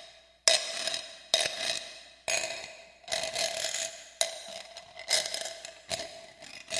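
Metal scraping and rattling in a haunted-house sound effect: about eight sharp strikes, each trailing off in a rasping scrape with a ringing metallic note.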